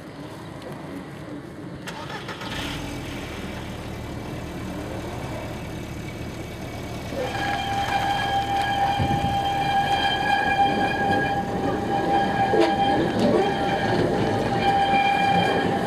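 Great Orme Tramway cable-hauled tramcar approaching and passing on street track, its rumble growing louder. From about seven seconds in, a sustained high-pitched squeal sets in, broken briefly a few times: steel wheels squealing as the car takes the curve.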